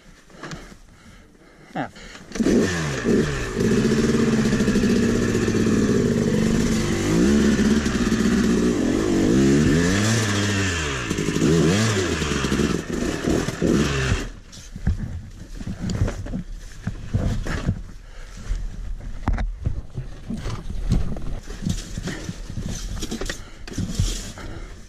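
Yamaha YZ250 single-cylinder two-stroke dirt bike engine firing up about two seconds in and revving up and down hard for some twelve seconds while the bike is stuck in a deep sand rut, then cutting out suddenly. After that, scattered scrapes and clatter as the bike is wrestled in the sand.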